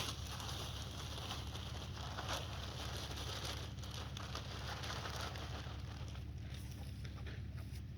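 Bagged topsoil being emptied and handled: loose soil pattering down with crinkling and crackling of the plastic bags, over a steady low hum.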